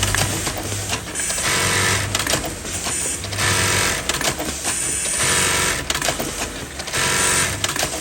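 Industrial sewing machines stitching in short high-speed bursts of about half a second, several times over a steady machine hum.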